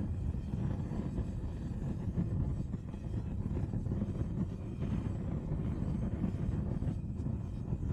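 Propane torch burning with a steady, low rushing sound as it heats sheet-metal rose pieces.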